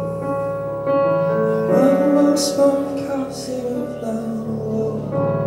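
Live piano ballad: sustained piano chords with a male voice singing a held, sliding phrase through the middle.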